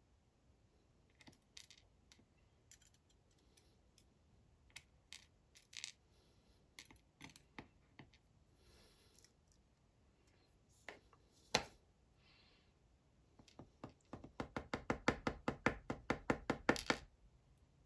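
Small metal clicks and taps of dimple-lock pins and tools being handled on a hard surface. One louder click comes about two-thirds of the way in, then a quick run of rapid clicks, several a second, for about three seconds near the end.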